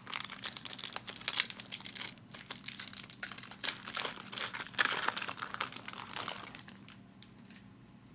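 Hockey card pack wrapper being torn open and crumpled by hand: a dense crinkling that stops about seven seconds in.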